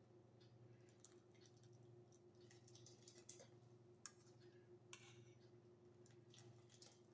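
Near silence: a low steady hum, with faint soft clicks and short scrapes of a spoon stirring thick curry gravy in a steel pan.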